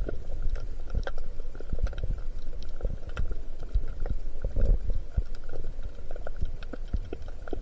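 Underwater sound picked up by a camera held below the surface: a muffled low rumble of moving water with many small crackling clicks throughout.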